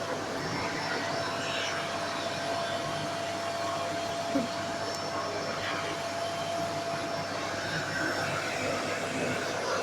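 Household vacuum cleaner running steadily: an even rushing noise with a thin, constant whine. A single short bump about four seconds in.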